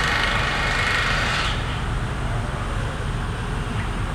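Heavy construction equipment engine running steadily with a low rumble, a hiss above it fading out about a second and a half in.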